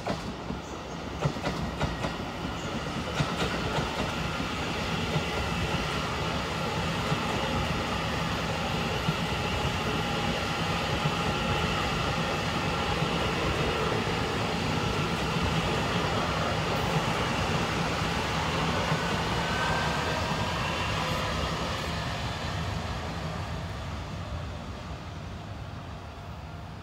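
Electric multiple-unit commuter train passing close by: a steady rolling rumble with its wheels clicking over rail joints in the first few seconds. It fades as the train moves away near the end.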